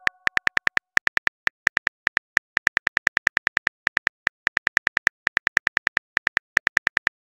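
Phone keyboard clicks as a text message is typed, a fast, uneven run of taps with a few short pauses.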